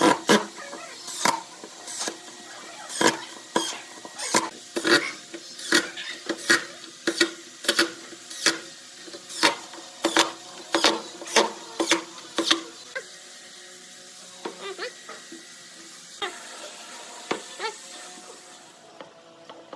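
Repeated sharp knocks with a short ringing after each, about two a second for the first twelve seconds or so, then fewer and softer ones.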